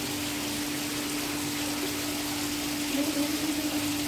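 Steady rushing water with a constant low hum underneath; a brief wavering sound rises over it about three seconds in.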